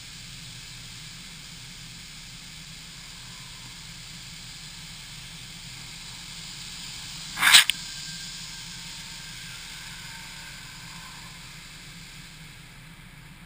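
Touchless car wash machinery heard from a camera on the car's roof: a steady hiss over a low hum, broken about halfway through by one loud, sharp burst lasting well under half a second.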